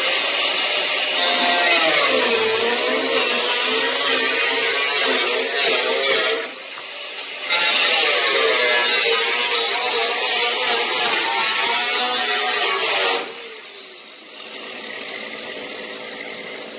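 Handheld abrasive cut-off tool cutting a hole through a car's hood panel, its pitch wavering as the disc bites into the metal. It runs in two long cuts with a short break about six and a half seconds in, and stops about thirteen seconds in.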